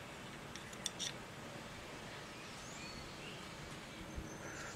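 Faint shop room tone with a few small metallic clicks about a second in, from a snap gauge being set against an outside micrometer.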